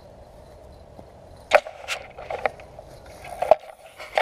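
Handling noise from the camera being picked up and moved: a series of sharp knocks and bumps starting about one and a half seconds in, the loudest a little after halfway and a pair near the end.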